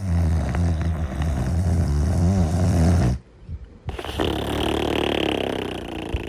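Snoring: a loud, low snore for about three seconds, a brief pause, then a second, breathier snore that slowly fades.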